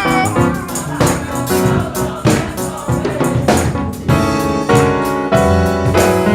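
Live gospel band playing an upbeat song with keyboard and a steady beat, voices joining in.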